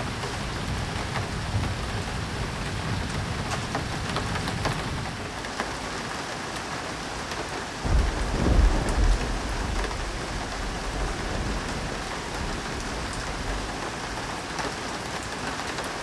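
Heavy rain pouring down steadily, a gully washer, with a low rumble of thunder about eight seconds in.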